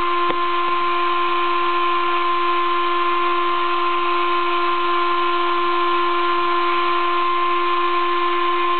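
Sable-2015 desktop CNC mill's spindle running at a steady whine with a hiss, as a 20-degree V engraving cutter cuts lettering into acrylic plate. A faint tick sounds just after the start.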